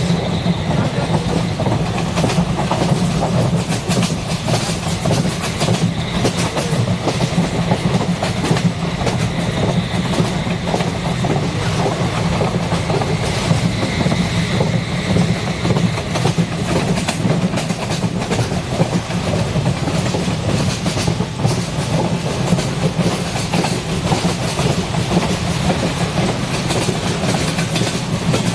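A train running steadily along the track: a continuous rumble with the clickety-clack of wheels over the rails.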